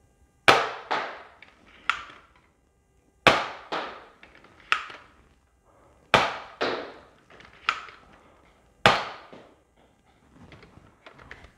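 Toy Nerf dart blaster (a Fortnite-branded four-dart model) firing four shots about three seconds apart. Each shot is a sharp snap followed by a couple of lighter knocks.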